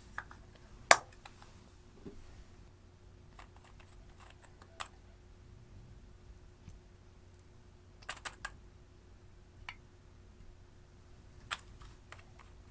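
Sparse, sharp clicks and taps from handling slime and eyeshadow, with no steady rhythm. The loudest comes about a second in, and there is a quick run of three about eight seconds in, over a faint steady hum.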